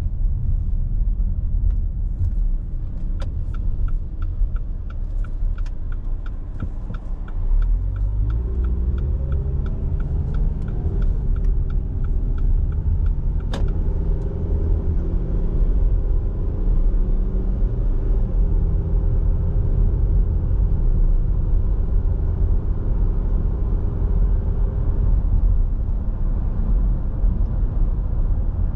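Car heard from inside the cabin: steady engine and road rumble, with a turn-signal indicator ticking about twice a second for about ten seconds, ending in a single sharper click. Meanwhile the engine note rises as the car pulls away and speeds up, then settles into steady cruising.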